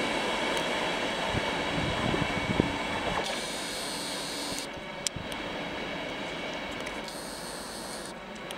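Locomotive-hauled passenger coaches rolling away over the rails, fading steadily as the train recedes, with a few low knocks from the wheels about two seconds in.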